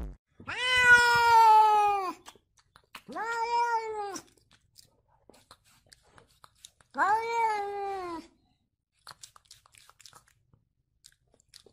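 Domestic cat meowing three times close to the microphone: long, drawn-out meows, each sagging in pitch at its end, the last coming about seven seconds in.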